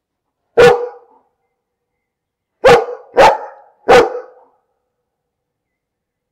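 A dog barking four times: a single bark about half a second in, then three quick barks in a row about two seconds later.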